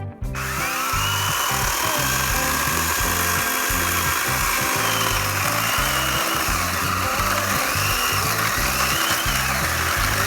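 Kobalt 80V brushless electric chainsaw running through wood, its motor whine dipping and rising under load, over background music with a steady beat.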